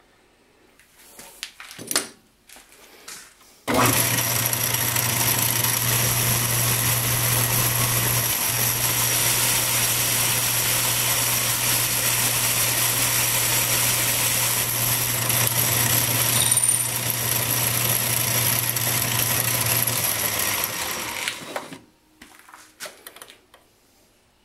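A few light handling clicks, then a metal lathe is switched on and runs steadily with a low motor hum and a whine for about sixteen seconds, taking the last light finishing cut with 8 thousandths of an inch left on the shaft, before it is switched off and spins down.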